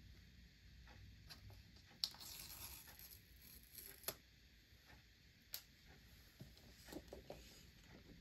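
The paper pull-tab seal is torn from the bottom of an iPhone 15 Pro Max box: a short tearing rip starts sharply about two seconds in and lasts about a second. It is followed by a few light clicks and taps as the cardboard box is handled.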